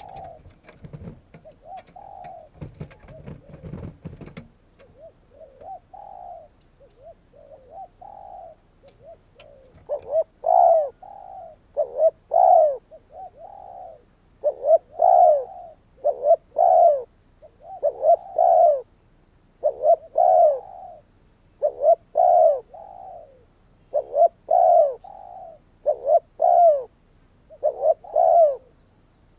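Spotted dove cooing, phrase after phrase: faint coos at first, then from about a third of the way in loud, regular coos roughly every one to two seconds, each with a quick upward lilt. A few low thumps or rustles in the first few seconds.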